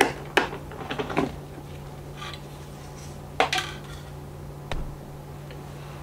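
Hard plastic clicks and knocks from handling a canister vacuum cleaner, its hose connector being fitted into the body and the plastic tube parts knocking. There are several sharp clicks, the loudest right at the start and about three and a half seconds in.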